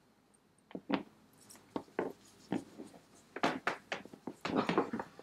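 A series of short scrapes, taps and clicks from hands opening and handling a small glass perfume sample vial, growing more frequent in the second half.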